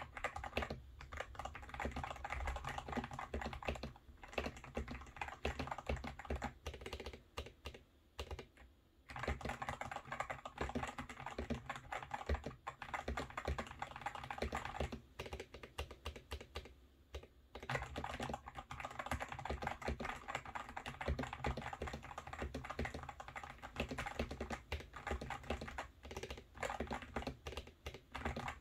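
Typing on a GMMK Pro mechanical keyboard with lubed Boba U4T tactile switches, tape- and foam-modded: a steady run of keystrokes that pauses briefly twice.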